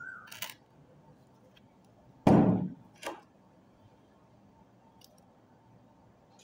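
A heavy metallic knock a little over two seconds in, then a lighter knock under a second later, with a faint click near the start: parts of a rusted starter motor being knocked and handled during disassembly.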